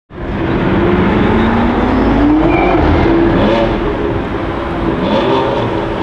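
BMW M5 F10's twin-turbo V8 with an Akrapovic exhaust pulling under acceleration, its pitch rising over the first couple of seconds and then holding steady.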